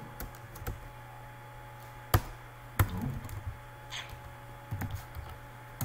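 Scattered keystrokes on a computer keyboard: a few sharp clacks with pauses between them, the sharpest about two seconds in, over a steady low hum.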